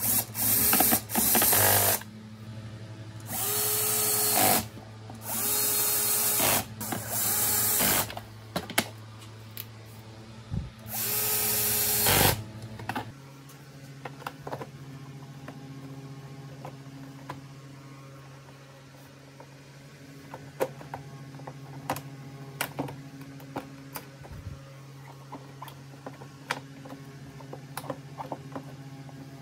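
Cordless drill-driver running screws into the vacuum's plastic housing in about six short bursts, each with a quick rise in motor pitch as it spins up. Then light clicks and knocks of the plastic housing parts being handled.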